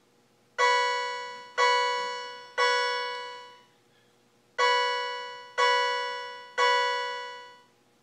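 Fire alarm system's chime-like alarm tone sounding in two groups of three, each tone struck and fading, about a second apart: the fire alarm panel's reminder that it has been left in walk test mode.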